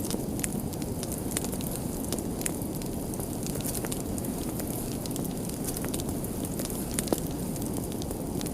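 A fire crackling, with a steady low rush of flame and scattered sharp pops and snaps. One pop is louder than the rest, about seven seconds in.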